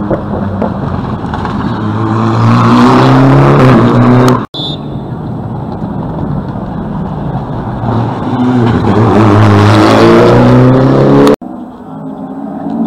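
Rally cars at full throttle coming on at speed, the engine note climbing as each one nears and gets louder. The sound cuts off abruptly about four and a half seconds in and again near the end, with a second car building up in between.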